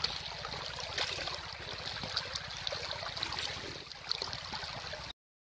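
Shallow river water running and trickling, with a few small splashes. The sound cuts off abruptly shortly before the end.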